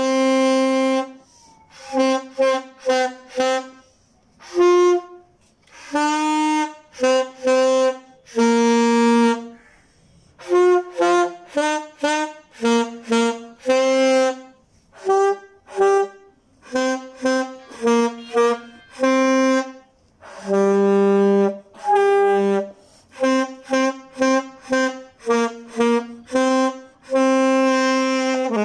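Alto saxophone played solo, a melody of separate notes in short phrases with brief pauses between them.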